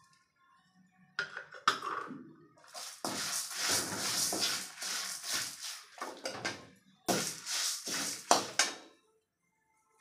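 Slotted steel spatula scraping and stirring urad dal and dried red chillies as they roast in a metal pan, a run of scrapes with the dry lentils rattling against the metal. It starts about a second in and stops near the end.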